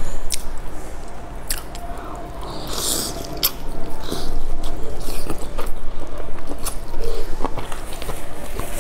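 Close-miked eating sounds: biting into and chewing a soft, broth-dipped wrapped food, with many sharp wet clicks and smacks from the mouth.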